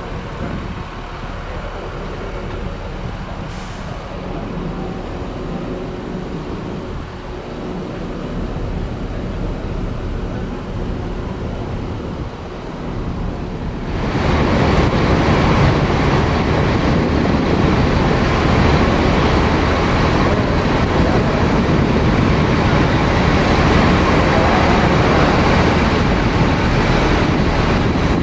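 Large diesel bus engines idling, a steady rumble. About halfway through, at a cut, the sound suddenly becomes louder and fuller.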